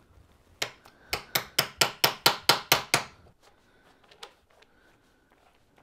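About ten quick hammer blows, roughly four a second, struck at the end of a BMW S1000RR's handlebar, followed a second later by one lighter tap.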